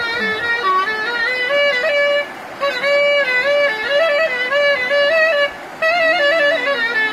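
A wind instrument played solo: an ornamented folk melody of held notes and quick trills, with two short breaks for breath about two and a half and six seconds in.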